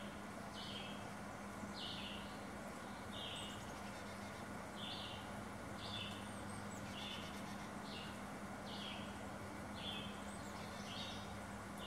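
Carolina chickadees calling at the nest box: short buzzy calls, each stepping down in pitch, repeated about once a second. A steady low hum lies underneath.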